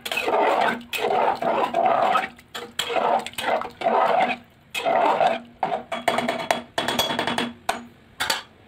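A metal ladle stirring rice and vegetables in an aluminium pressure cooker, scraping in quick repeated strokes, with a few sharp taps on the metal in the last few seconds.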